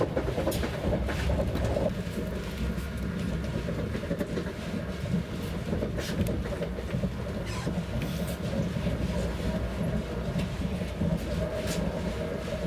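Running noise inside a Lastochka ES1P passenger car on the move: a steady low rumble with occasional sharp clicks from the wheels on the track.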